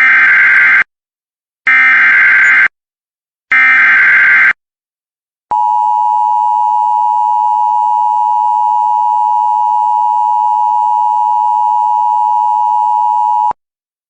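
Emergency Alert System activation: three one-second bursts of warbling digital data tones (the SAME header), each about a second apart. Then a steady, loud EAS attention tone held for about eight seconds and cut off sharply. It opens a National Weather Service severe thunderstorm warning.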